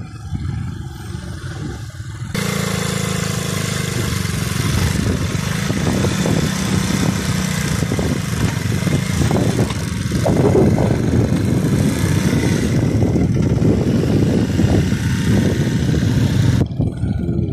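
Small motorcycle engine running as it rides off towing a trailer-mounted diesel engine. The sound jumps louder about two seconds in and cuts off abruptly shortly before the end.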